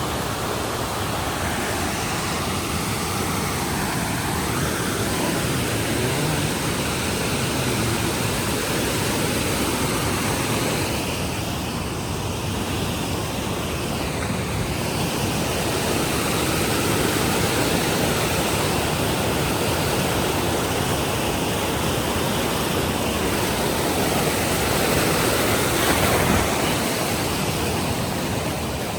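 Steady rush of fast-flowing water, a glacial meltwater river or stream, as an even roar with no breaks.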